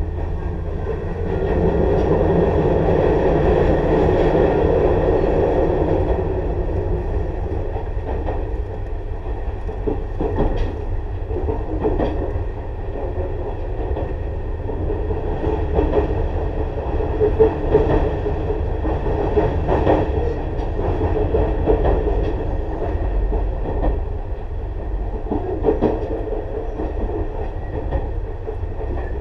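Tobu 6050 series electric train running between stations, heard from inside motor car MoHa 6169: a steady rumble of wheels on rail, with scattered knocks from rail joints. It is somewhat louder for a few seconds near the start.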